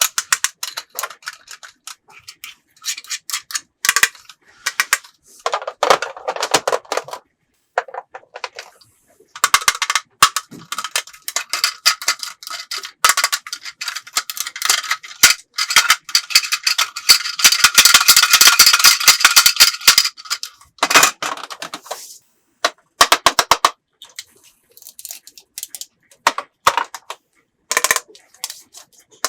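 Hard plastic toy pieces clicking and clattering as they are handled, with a long stretch of rapid rattling in the middle.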